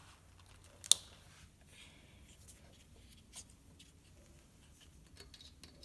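Quiet handling of small tools and parts, with one sharp click about a second in and a softer tap a little past three seconds.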